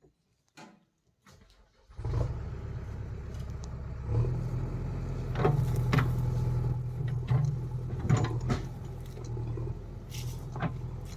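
Near silence, then about two seconds in the diesel engine of a farm machine (tractor or JCB) is heard running steadily, with several clanks over it.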